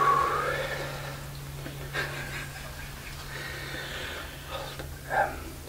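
A man whispering to the camera, breathy speech over a low steady hum.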